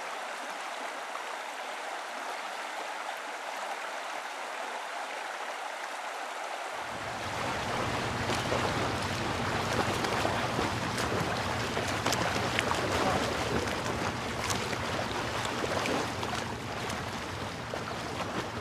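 A steady outdoor rushing noise. About seven seconds in it suddenly deepens as a low rumble comes in. From then on there are scattered light clicks and rustles of steps through undergrowth.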